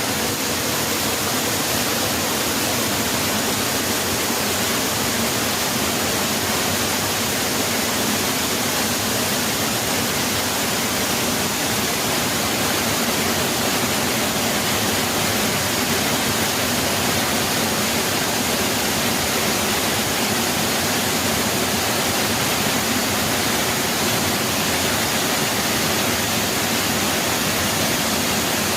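Waterfall rushing: a steady, dense hiss of falling water with no breaks.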